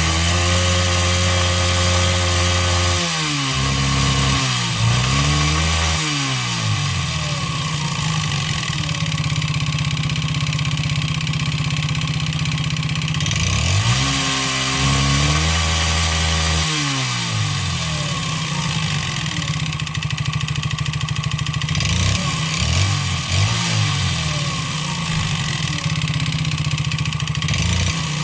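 139QMB 50cc four-stroke scooter engine running, revved up and let back down several times with steadier running between. It knocks with piston slap: the piston skirt has been ground short and the cylinder honed out, so the piston rocks loosely in the bore.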